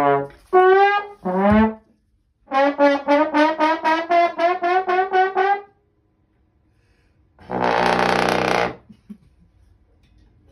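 Comic brass sound effect, trombone-like: a few short wavering notes, then a run of rapid notes at about four a second for some three seconds, and near the end one long blaring note.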